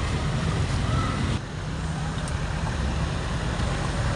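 Steady low rumble of outdoor street noise, dipping briefly about one and a half seconds in.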